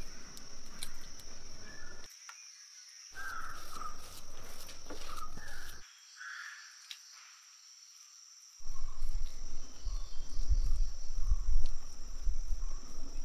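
Steady high-pitched drone of insects, with crows cawing a few times a few seconds in. Stretches of low rumbling noise cut in and out, the loudest through the second half.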